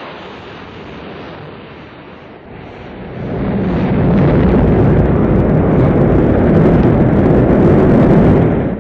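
Rocket engines igniting for launch: a rushing noise that swells about three seconds in into a loud, steady low rumble at full thrust.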